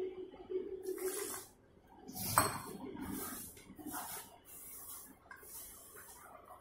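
Liquid poured from a steel tumbler into flour in a steel basin, then a hand kneading and pressing the dough against the basin in repeated scraping strokes about once a second. A sharp metal knock about two seconds in is the loudest sound.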